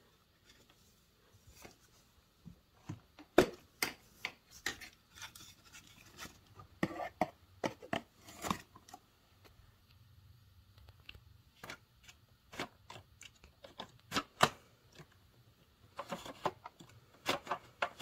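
Hard plastic clicks and knocks from handling a 1995 Dirt Devil MVP upright vacuum cleaner with its motor off, coming in irregular clusters. Near the end there is a quick run of clicks as the height-adjust pedal on the base is worked.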